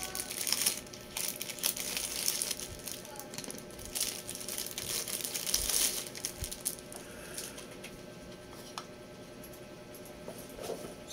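Thin plastic bag crinkling and rustling as it is cut open and a power adapter is pulled out of it. The rustling is loud for the first six seconds or so, then fades to faint, occasional handling noise.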